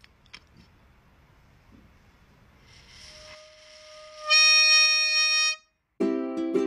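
Plastic toy football-fan horn sounded by a golden retriever's breath: a breathy hiss builds, then the horn gives one loud, steady, reedy note for over a second and cuts off. Plucked-string music starts just before the end.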